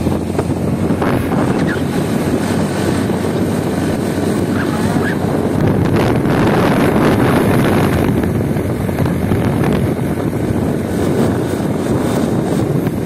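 Wind buffeting the microphone from a moving vehicle, over a steady rumble of road and engine noise.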